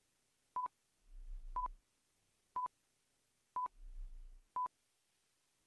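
Quiz countdown-timer sound effect: five short, identical electronic beeps at one pitch, one per second.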